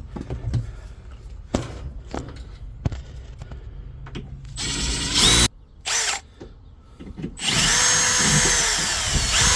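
Knocks and clicks of handling, then a power drill drilling a hole: a short burst about five seconds in, a brief blip, then a steady run with a high motor whine over the last two seconds or so.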